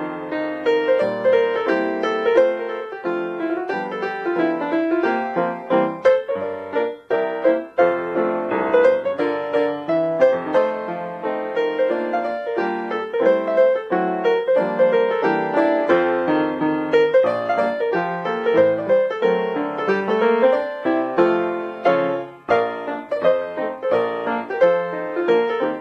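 Piano music playing continuously, with many quick notes.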